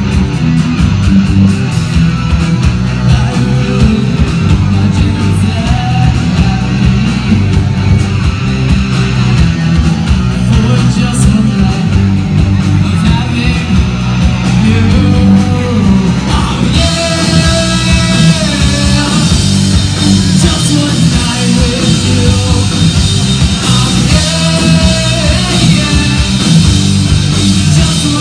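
Live rock band playing loud: electric guitars, bass guitar and drum kit. About two-thirds of the way through, the cymbals get brighter and a sung lead vocal comes in.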